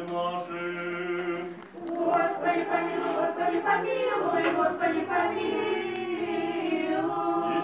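Small church choir singing Orthodox liturgical chant a cappella, in long held notes, with a brief pause between phrases about two seconds in.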